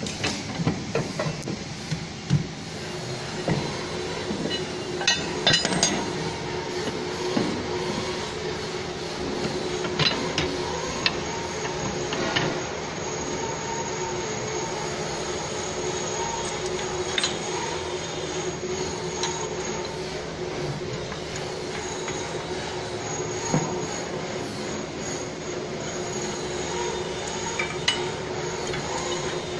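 Scattered metallic clinks and knocks from steel bolts and a stationary cutter blade being handled and seated in a steel machine frame, over a steady machinery hum with a faint high whine.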